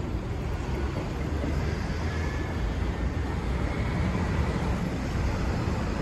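Steady low rumble of vehicle engines and road traffic.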